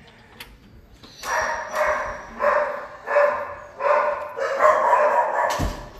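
Shelter dog barking repeatedly, a run of about six barks a little under a second apart, starting about a second in. Near the end there is a single thump.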